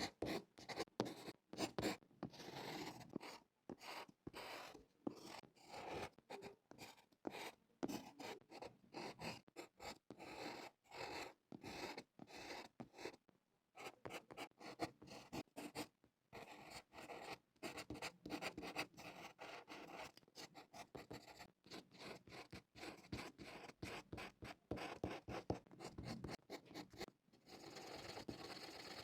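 Drawing strokes scratching on paper, many short quick strokes with brief pauses between them; near the end the scratching turns steadier and continuous.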